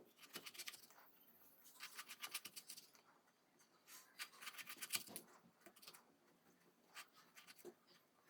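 Knife cutting stacked raw potato slices into fry strips on a cutting board: faint runs of quick, sharp strokes, four runs in all.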